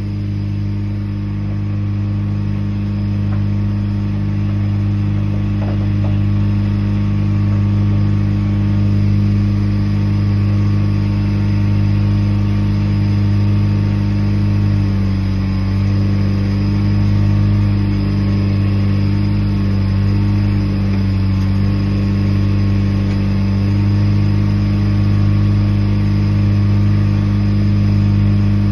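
Engine of a Ditch Witch FX60 vacuum excavator running steadily at a constant speed, its note wavering briefly about halfway through before settling again.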